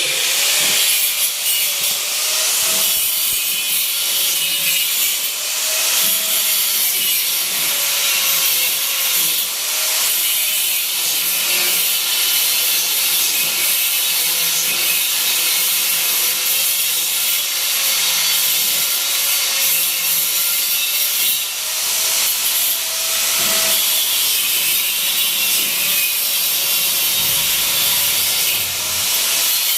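Power tool running steadily against a surface, a continuous abrasive hiss with a faint wavering motor tone beneath it, typical of sanding or grinding during vehicle body repair.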